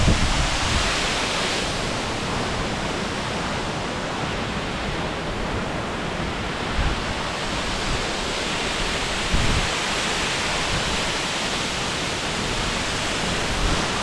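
Steady rushing of the big Gveleti waterfall, a tall mountain falls plunging close by into its rock pool.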